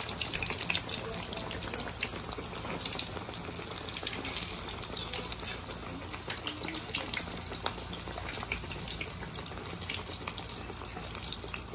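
Chicken pieces deep-frying in hot oil: a steady sizzle with many small sharp crackles and pops.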